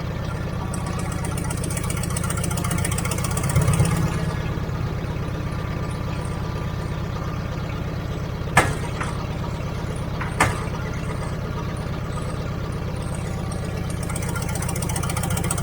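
Heavy-equipment engine running steadily, a little louder briefly about three and a half seconds in. Two sharp knocks come about two seconds apart past the middle.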